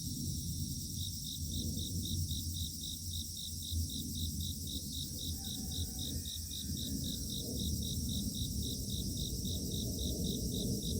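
Dawn chorus of grass insects: a cricket chirping evenly, about four chirps a second after a short pause near the start, over a steady high-pitched trilling drone of many more insects. A low rumble runs underneath.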